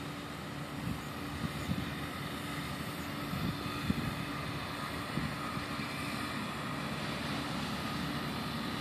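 Faint steady whine of a radio-controlled model ship's motors running across the pond, its pitch shifting a little about halfway through, over a low uneven rumble with a few bumps on the microphone, the loudest about four seconds in.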